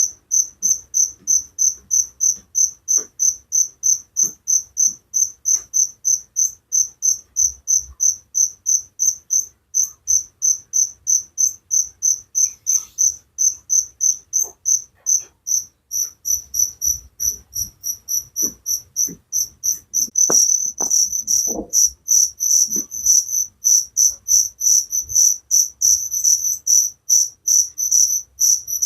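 Cricket chirping in a steady, high-pitched pulse train of about three chirps a second; about two-thirds of the way through a second cricket joins and the chirping grows denser and louder.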